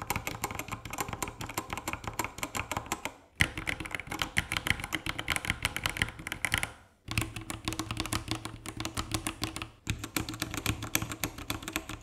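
Typing sound test on two 65% mechanical keyboards, an Epomaker TH68 and a Gamakay LK67: fast, continuous clacking of keystrokes, cut into four short takes with brief silences between them.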